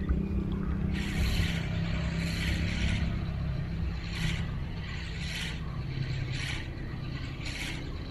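Paddle strokes swishing through the water beside a wooden canoe, one every second or so, over a steady low hum.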